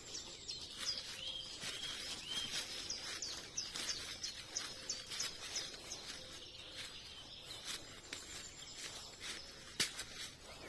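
Small birds chirping: runs of short, high, quickly repeated notes, with a few lower chirps early on, over a faint steady outdoor hiss. Scattered sharp clicks run throughout, with a louder one near the end.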